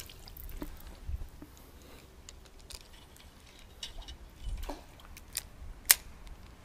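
Scattered light clicks and taps of handling noise, with one sharp click about six seconds in.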